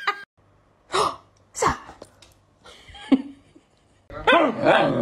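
Two short, sharp bursts of noise, then near the end a dog's drawn-out, wavering whine as it vocalizes back at a person.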